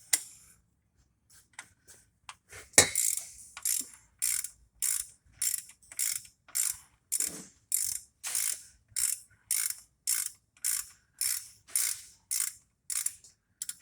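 Ratchet wrench clicking in short bursts about two a second, swung back and forth to back out a tight engine oil drain plug. A single sharp click comes a little before the bursts begin.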